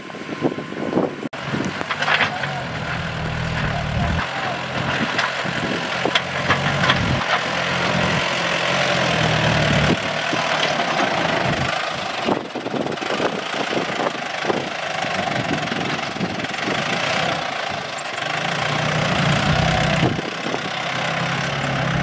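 Tractor engine running steadily as it works, its low drone swelling and easing several times.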